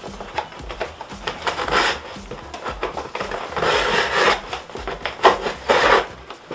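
Large cardboard box being handled and opened: several rustling, scraping swishes of the flaps against each other, with scattered small knocks.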